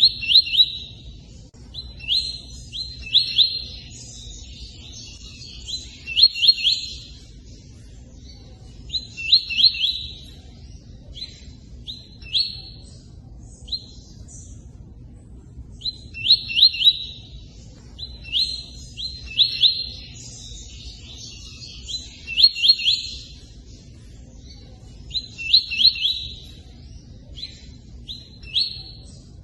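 Tui-tui bird calling in clusters of quick, sharp chirps every few seconds, the same run of calls coming round again about every 16 seconds, over a steady low wash of running water.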